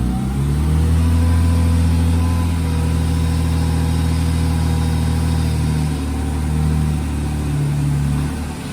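BMW E36 M3's straight-six engine pulling away under light throttle on a newly replaced clutch; its pitch rises just after the start, then holds fairly steady with small rises and falls, easing off near the end.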